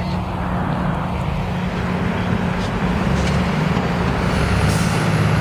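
A city bus drives along the street with its engine running steadily, amid passing car traffic, and a brief air hiss near the end.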